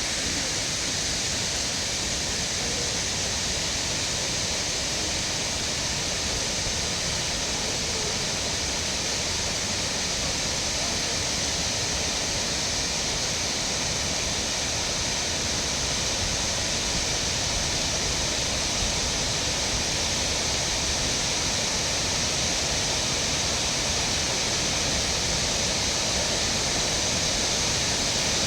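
Steady rush of Shiraito Falls, a wide waterfall that drops in many thin streams, with an even hiss of falling water and no break or change.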